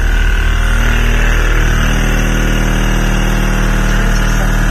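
A car-audio system of twelve Resilient Sounds 15-inch subwoofers playing a steady 39 Hz bass tone flat out for an SPL meter, which reads about 160.8 dB. The very loud low drone is distorted, with a buzz above it, and swells about one and a half seconds in.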